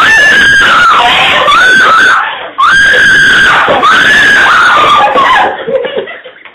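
A young woman screaming in fright at an earwig: long, high-pitched, wavering screams, broken by a short pause about two and a half seconds in and trailing off near the end.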